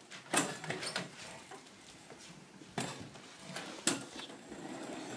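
A handful of scattered knocks and thumps over a low rustling, the sharpest about half a second in and just before four seconds.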